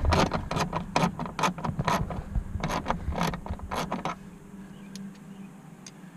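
Socket ratchet clicking rapidly as it backs out a dashboard bolt, about four or five clicks a second with a short break about two seconds in, stopping about four seconds in.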